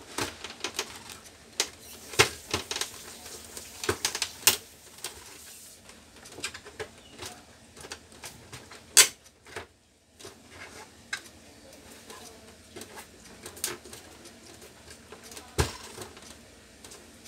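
Irregular clicks and knocks of hands handling and working the plastic housing of an Epson L1300 printer during disassembly, with a sharp knock about nine seconds in and another near the end.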